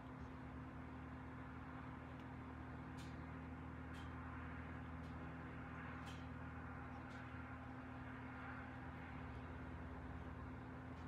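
Steady low hum of room background noise, with a few faint clicks now and then.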